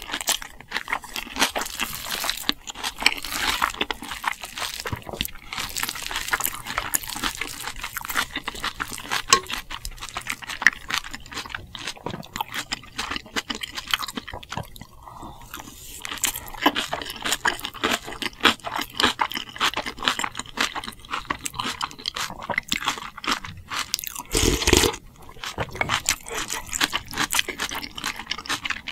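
Close-miked eating sounds: steady chewing with crunching and wet mouth noises. A short louder noise comes about 24 seconds in.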